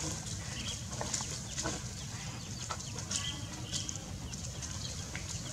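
A chick peeping a few times, short high cheeps, over rustling and light ticking of dry leaf litter.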